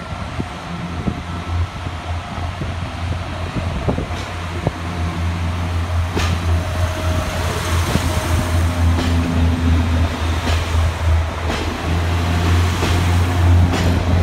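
A double Pacer diesel railbus pulling out and passing close by: a steady, low diesel engine drone that grows louder as the units go past, with a few sharp clicks along the way.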